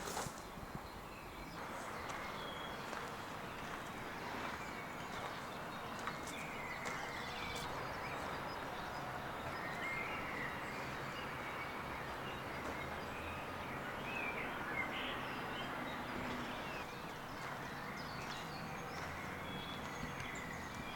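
Steady outdoor background noise with a few short bird chirps scattered through it.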